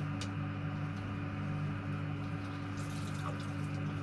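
Water running steadily in a small room, with a constant low hum underneath and one light click about a quarter second in.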